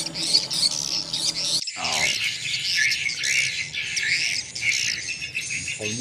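Recorded swiftlet calls playing through a swiftlet house's tweeter speakers: continuous high twittering chirps. A low steady hum sits under them and cuts off about one and a half seconds in.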